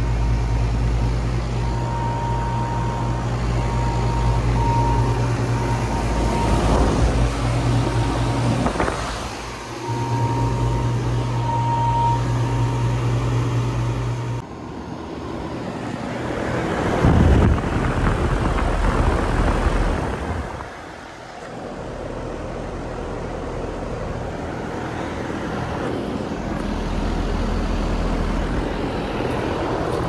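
Residential central air-conditioner condensing units running: a steady low compressor hum under the rush of the condenser fan. About halfway in, the sound changes abruptly to a second unit's different, lower drone.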